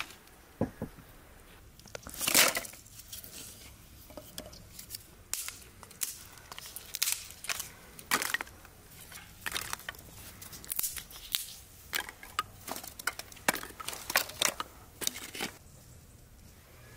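Dry sticks and twigs clattering and crunching as they are pulled from a woodpile and laid over split kindling: a run of sharp wooden clicks and cracks, the loudest a crunch about two seconds in.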